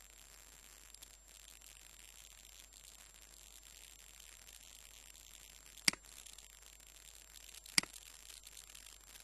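Steady faint hiss of recording noise, broken by two sharp computer-mouse clicks about two seconds apart in the second half.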